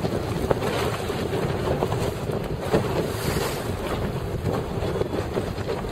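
Steady wind buffeting the microphone over choppy open water, with small waves splashing.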